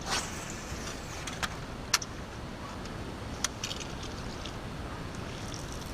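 Steady low rumble aboard a fishing boat, broken by four or five sharp clicks and taps of gear being handled.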